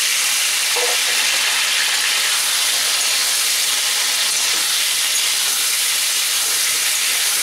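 Pressure-boiled taro cormels (gati kochu) frying in hot mustard oil in an aluminium kadai as they are stirred with a spatula: a steady, even sizzle.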